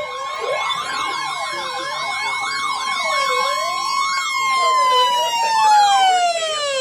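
Warning sirens: a steady siren tone with a second siren wailing up and down over it, about once every second and a half. Near the end the steady tone winds down in pitch and cuts off suddenly.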